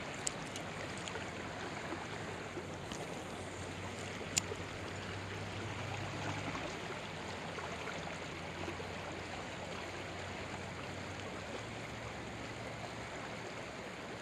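Steady rush of a fast-flowing river current, with a few faint clicks, one sharper about four seconds in.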